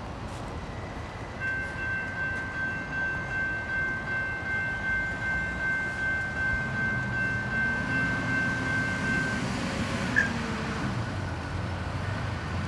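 Railroad crossing warning bell ringing while the gates rise after the train has cleared, a pulsing high ring that starts about a second and a half in and stops about nine seconds in. A road vehicle's engine rises in pitch underneath near the end.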